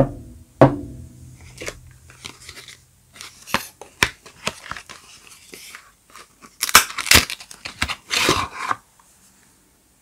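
A cardboard soap box being opened and the bar taken out by hand: two sharp cardboard snaps at the start, then scattered crackling and rustling, and a louder burst of tearing and crinkling about seven to nine seconds in.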